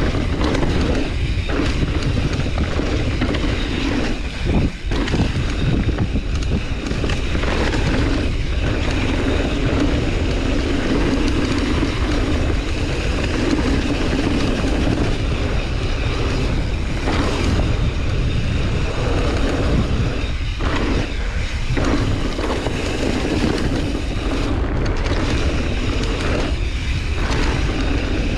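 Mountain bike descending a dirt trail: a steady rush of wind on the microphone over tyre noise, with short dips about four and twenty seconds in.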